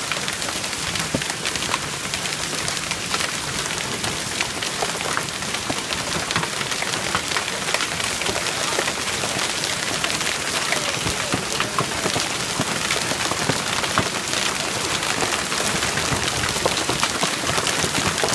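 Small hail falling steadily on a wooden deck and the yard around it: a dense, even patter of countless tiny ticking impacts.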